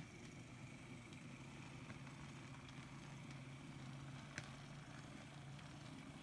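Atlas N scale GP40 model locomotive running slowly on track, a faint steady motor hum and whine with light ticks of the wheels over the rail, and one sharper click about four and a half seconds in.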